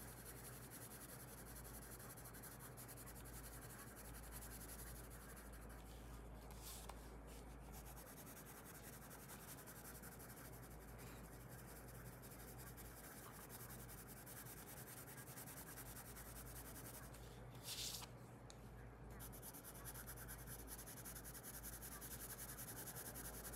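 Faint, steady scratching of a coloured pencil shading back and forth on paper, with a short louder scrape about three-quarters of the way through.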